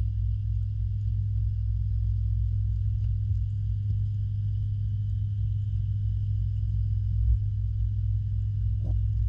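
Steady low hum and rumble heard underwater, with faint steady high tones above it: the pond's pump and filtration running, carried through the water to the camera. A brief soft swish comes just before the end.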